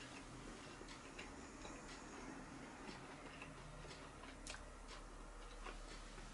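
Quiet room with faint, irregular clicks: mouth sounds of a man chewing food.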